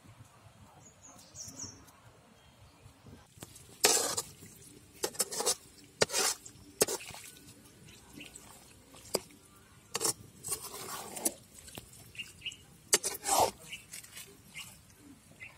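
Metal ladle scraping and knocking against a metal kadai as it stirs wet, masala-coated pork chunks. A quiet start, then from about four seconds in a string of sharp scrapes and clatters at uneven intervals.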